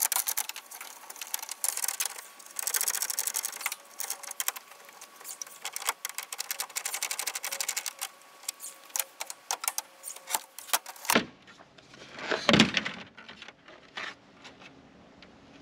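Rapid ratchet clicking from a 10 mm socket tool undoing the Hilux grille's fixing screws. About 11 s in it gives way to a few knocks and one loud plastic clatter as the grille is tugged off its clips.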